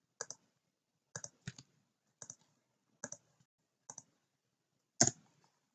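Single keystrokes on a computer keyboard: about seven spaced-out presses, several heard as a quick double click, with a louder one near the end.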